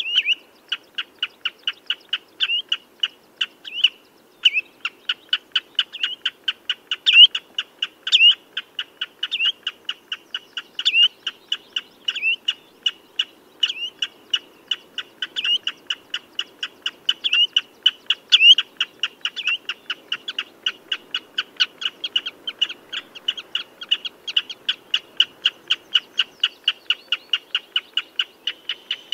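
Common redshank calling: a long, steady series of short, piping notes, about three to four a second, with louder down-slurred notes every second or so.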